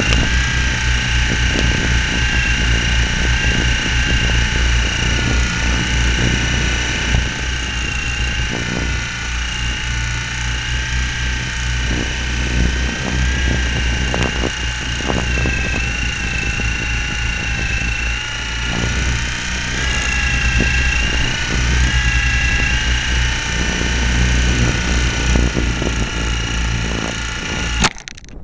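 Onboard sound of a model airplane's motor and propeller running steadily in flight, a high whine that wavers slightly in pitch, with wind rumbling on the onboard microphone. Near the end the sound stops suddenly with a knock as the plane hits a roof, cutting the short flight off.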